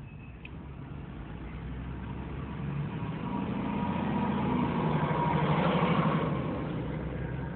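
Fire engine's diesel engine pulling away close alongside, heard from inside a car. It grows steadily louder, peaks about three-quarters of the way through, then eases off.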